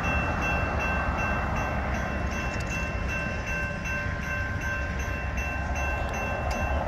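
Railroad grade-crossing warning bell ringing in a fast, even repeat, about three strokes a second, while the crossing gates come down, over a steady low rumble.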